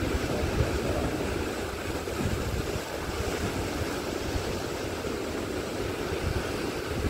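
Rough sea surf breaking and churning white over the rocks below a sea cliff: a steady, rushing wash.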